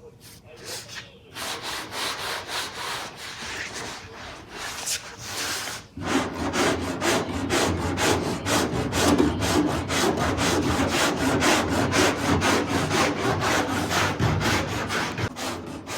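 A hand tool rubbing back and forth in quick, even strokes, about four a second. The strokes grow heavier and louder about six seconds in.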